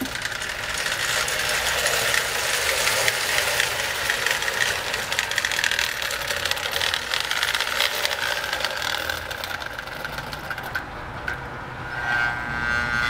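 Marx 666 toy steam locomotive running on O-27 tinplate track, its electric motor whirring and its wheels clattering along the rails. It grows louder over the first few seconds as it runs up close.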